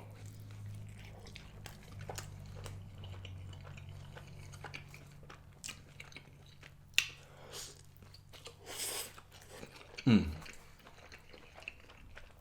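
Close-miked chewing of a mouthful of steak and cheese sub, with small wet mouth clicks and smacks. A low steady hum runs under it for most of the time, and a short falling "mm"-like sound comes near the end.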